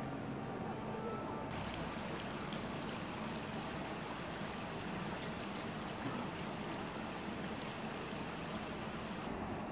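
Fountain water cascading down a tiered sculpture and splashing into a shallow pool: a steady splashing hiss that starts abruptly about a second and a half in and cuts off near the end.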